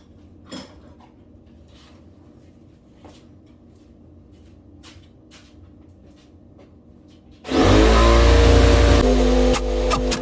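Faint scattered clicks of tools being handled, then about seven and a half seconds in an electric air compressor kicks on suddenly, spinning up and running loudly.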